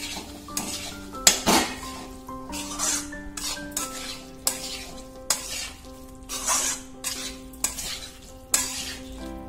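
A metal spoon stirring and scraping cut lemons and thick spice paste around a metal kadai, with repeated scrapes about once a second as the pickle is mixed.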